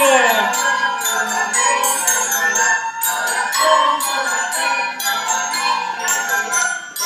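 A class of schoolchildren singing a song together to a chiming, bell-like accompaniment with a steady beat.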